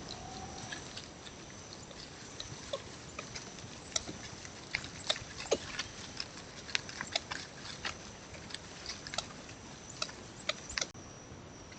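Coatis rooting and walking through dry forest leaf litter: irregular crackling and rustling of leaves with sharp snaps of twigs. A steady high-pitched tone runs behind it and cuts off near the end.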